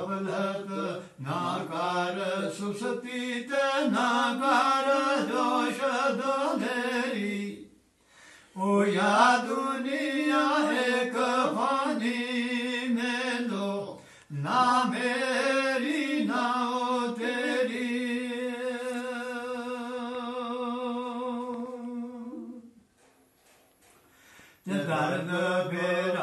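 A man chanting solo, unaccompanied, in long ornamented phrases, with a long held note before breaking off for a breath near the end and another short break about eight seconds in. The voice sounds close up in a small room.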